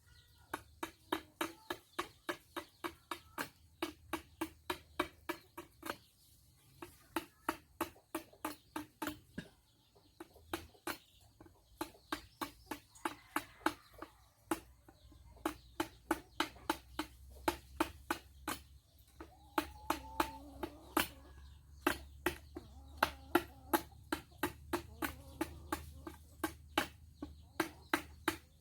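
Rapid, regular hammering, about three to four blows a second, in runs broken by short pauses, each blow with a brief ringing note. Chickens cluck faintly.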